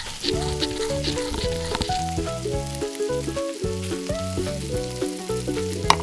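Rice frying and sizzling in a miniature pan as it is stirred, with soy sauce just added. Background music with a melody and bass line plays over it.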